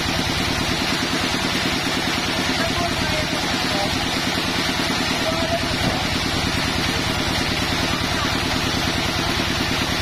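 Sawmill's engine running steadily at idle, an even rapid pulse with no change in speed, while no log is being cut.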